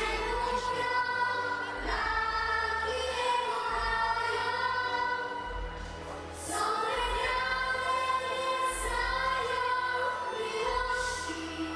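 Two girls, a young child and a teenager, singing a duet through microphones in long, held notes over musical accompaniment.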